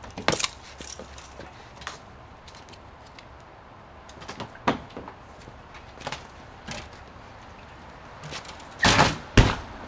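A truck camper's entry door being pushed shut near the end, with two loud knocks about half a second apart. Before it, scattered light knocks and clicks as someone steps down out of the camper and handles things in the doorway.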